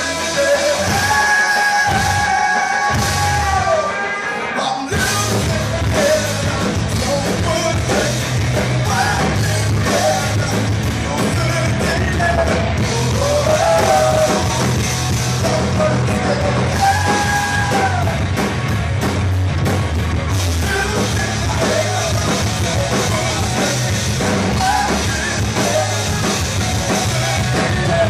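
Live rock band playing: a male vocalist singing into a microphone over electric guitar, bass guitar and drums. The opening is sparser, and the full low end of bass and drums comes in about five seconds in.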